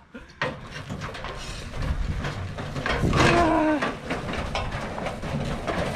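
A gas grill on its wheeled cart rattling and clattering as it is dragged across bumpy lawn and leaves. About three seconds in comes a short groan that falls slightly in pitch.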